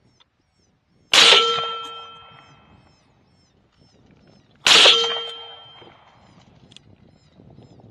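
Two rifle shots about three and a half seconds apart, each a sharp crack followed by a ringing tail that fades over about a second.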